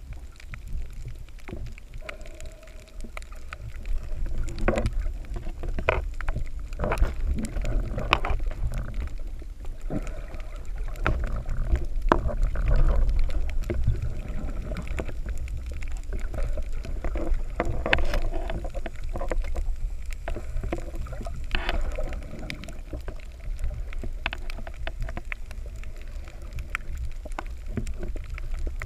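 Muffled underwater sound picked up by a submerged camera: a steady low rumble of moving water, with scattered sharp clicks and knocks.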